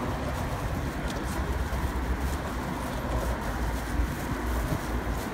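Steady hum of road traffic, with a low rumble of wind on the microphone.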